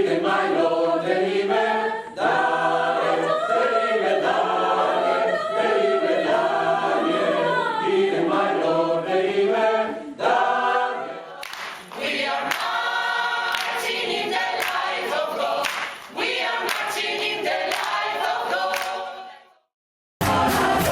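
Gospel choir singing in harmony, first unaccompanied; about halfway through a steady beat of sharp strokes joins the voices. Near the end the singing fades out and, after a brief gap, other music starts.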